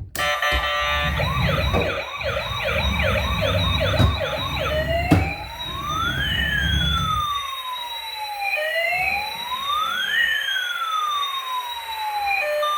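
Battery-powered toy emergency vehicle's electronic siren. It begins as a fast yelp over a low rumble, with two knocks. About five seconds in it switches to a slow wail, one tone falling as another rises.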